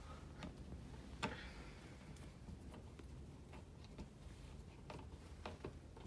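Faint, irregular clicks and ticks of a screwdriver turning the small security screw into the bottom of a Tesla Wall Connector's plastic faceplate, with the sharpest click about a second in.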